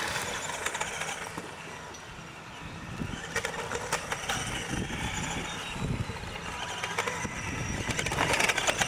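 Radio-controlled trucks driving on a dirt course: their small electric motors whine, rising in pitch for a few seconds mid-way, over scattered clicks and knocks from the trucks on the course.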